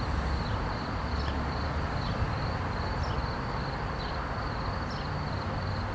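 Steady background sound with no speech: a continuous high-pitched, finely pulsing tone over a low steady hum, with a few faint high ticks.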